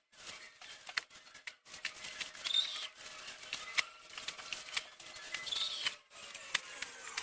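Scattered clicks and rustling from things being handled, with two short high chirps.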